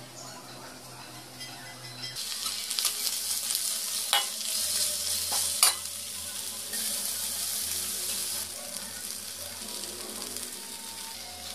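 Shredded vegetables sizzling as they fry in a steel pan, starting about two seconds in, while a metal spoon stirs them and clacks sharply against the pan twice.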